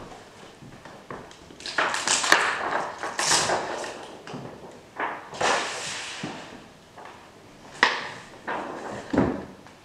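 Irregular rustling and handling noise, with a few sharp knocks and clicks spread through it.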